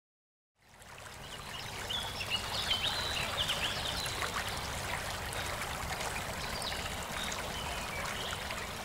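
River water flowing steadily, fading in about half a second in, with small birds chirping now and then over it.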